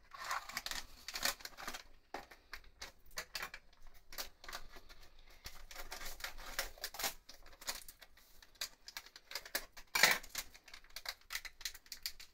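Paper and foil packaging handled: a cardboard yeast box opened and a foil yeast sachet crinkled and cut with scissors, a run of irregular rustles, crinkles and clicks, with one louder crackle about ten seconds in.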